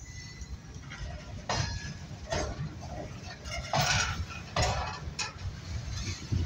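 Indian Railways goods train rolling slowly past: irregular sharp metallic clanks and clatter from the wagons' wheels, couplings and bogies over a steady low rumble, loudest about four seconds in.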